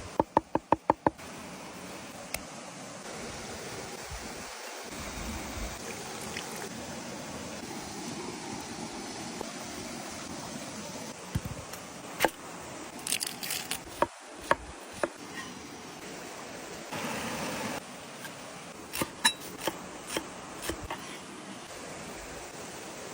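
Outdoor food preparation: a quick run of about six sharp knocks about a second in, then scattered clicks and knocks later on, over a steady rushing background noise.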